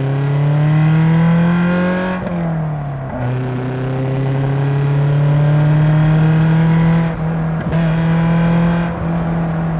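Lotus Elise's Toyota four-cylinder engine accelerating, its pitch rising, then falling sharply at a gear change about two seconds in, then running at a nearly steady pitch with brief dips later on.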